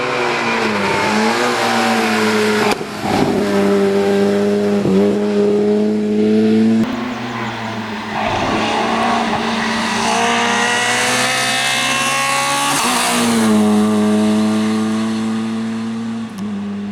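Volkswagen Golf Mk1 rally car's engine pulling hard at high revs, its pitch climbing and then dropping sharply at gear changes or lifts, several times.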